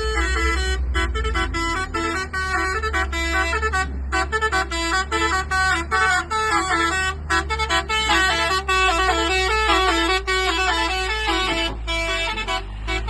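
Dump truck's telolet basuri musical air horn playing a fast melody of short notes that step up and down in pitch, over a steady low hum.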